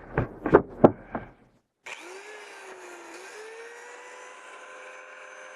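A few loud knocks in the first second and a half, then, after a short dropout, an electric angle grinder running with a steady whine. Its pitch dips once and then climbs and holds, as when the disc is loaded against the metal vent pipe and eases off.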